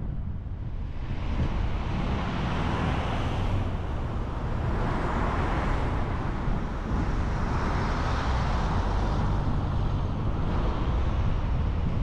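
Car driving on a road: steady road noise with a low rumble, swelling and easing a few times.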